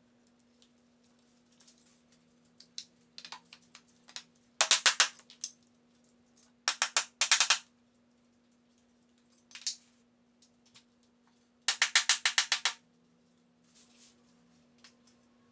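Click-lock laminate planks being knocked into place: sharp wooden taps in quick runs, the longest run about ten fast taps two-thirds of the way through, over a steady low hum.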